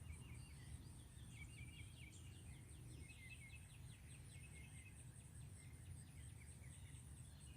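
Faint outdoor ambience: a distant bird calling in a rapid run of repeated chirps, over a steady high-pitched insect drone and a low rumble.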